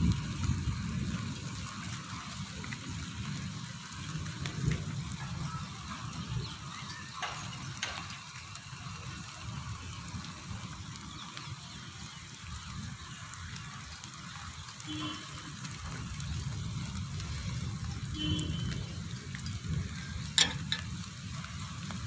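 Steady rain falling, an even hiss with a low rumble underneath. A single sharp tick comes near the end.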